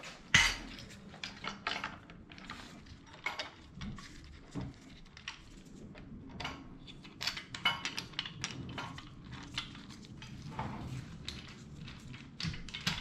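Irregular metal clinks and light knocks as a steel accessory-drive bracket, its bolts and spacers are handled and fitted against an engine's cylinder head, with one louder knock about half a second in.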